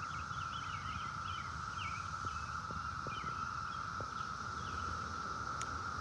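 A chorus of many cicadas: one steady, unbroken drone, with short higher chirps over it.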